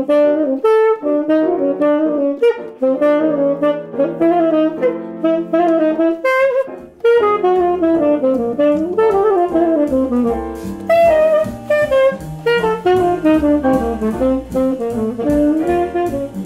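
Tenor saxophone playing a jazz melody in flowing, moving phrases, with a brief breath pause about halfway through. Lower notes join underneath about seven seconds in.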